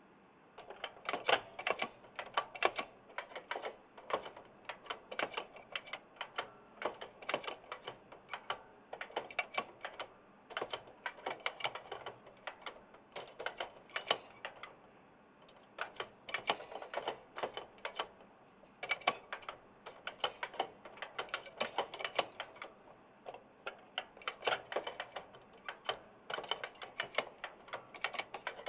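Typing on an oversized mechanical keyboard with Kailh Blue clicky switches: quick runs of sharp clicks broken by short pauses, with audible spring noise from the switches.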